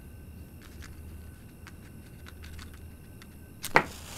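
A match is struck on a matchbox about three and a half seconds in and flares into flame with a sharp scrape and a hiss of about a second. Before the strike, a few faint ticks come from the box being handled.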